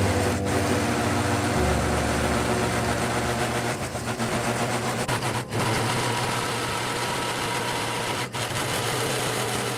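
Vehicle engine running steadily at idle, a low even hum with a wide noisy haze over it.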